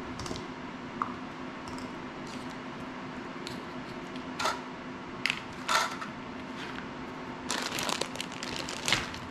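Small clicks and taps of tools and parts being handled on a drone frame, then a clear plastic parts bag crinkling near the end, over a steady low hum.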